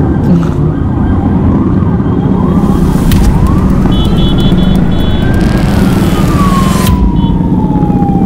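Police siren wailing, with quick short sweeps in the first few seconds, then one long slow rise and fall in pitch. Under it, the steady running of small motorcycle engines.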